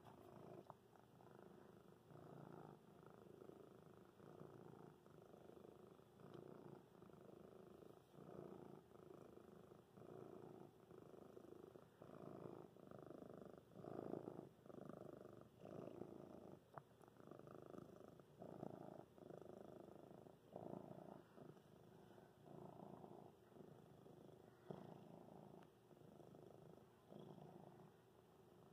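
Domestic cat purring steadily in soft pulses about once a second, loudest about halfway through.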